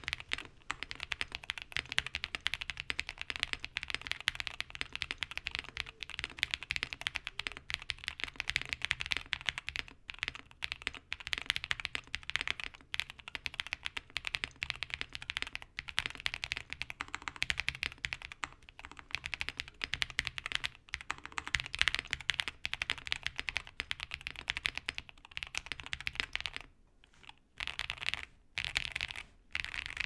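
Steady fast typing on a 65% mechanical keyboard with lubed Ashkeebs Alexandrite long-pole linear switches, fitted in a QwertyKeys QK65 with an FR4 plate, foam and ABS keycaps: a dense run of deep 'thock' keystrokes, breaking off into a couple of short pauses near the end.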